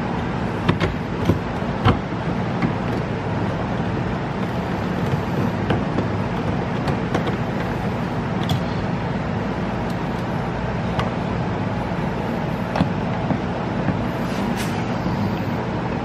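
Hand screwdriver driving T20 Torx screws into a car's rear door trim panel: scattered small clicks and taps, a few close together about a second in and more spread out later, over a steady low hum.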